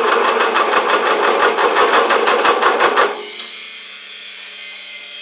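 Homemade metal lathe running under cut, with loud chatter and irregular knocking at about five a second. A little after three seconds the clatter stops suddenly, leaving a quieter, steady motor hum. The builder takes this to mean the drive belt is too slack and needs tightening.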